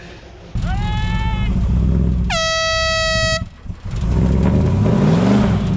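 Air horn blasts twice: a short one about a second in, then a longer, louder blast lasting about a second, over a steady engine rumble. After the horn, an engine revs up and down.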